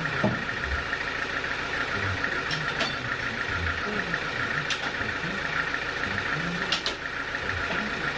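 Sawmill machinery running steadily with a constant hum, and a few sharp clicks or knocks.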